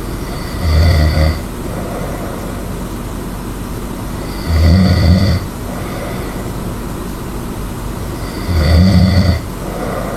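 A person snoring loudly: three snores in a slow, even rhythm, each lasting under a second and about four seconds apart, with a steady noise between them.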